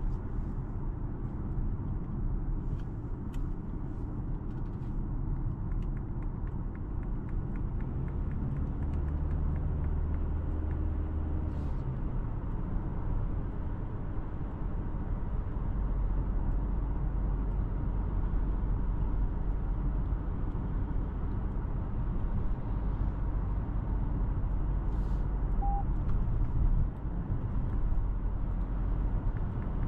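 Toyota Corolla Cross driving, a steady low rumble of engine and road noise that grows a little louder about halfway through.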